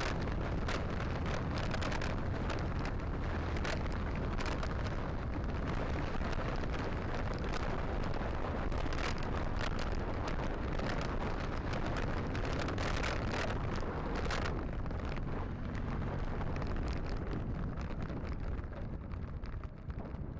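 Wind rushing over the microphone of a camera on a moving motorcycle, over the rumble of the bike riding a rough dirt track, with frequent knocks and rattles from the bumps. The rush eases a little in the last few seconds.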